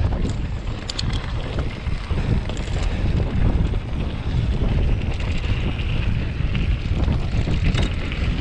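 Wind buffeting a GoPro microphone as a mountain bike rolls fast downhill, with tyre noise on the trail and a few brief clicks.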